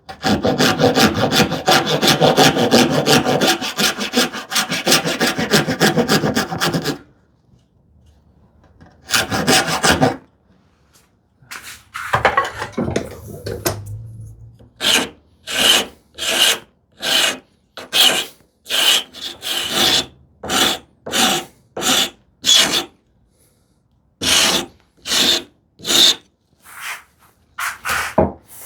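Rasp filing a small wooden piece to shape: fast, dense rasping for about seven seconds, then after a pause, separate push strokes a little under two a second.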